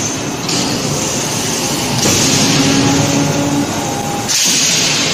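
Steady machinery noise from an electric screw forging press line, with a loud hiss that swells about two seconds in and again near the end.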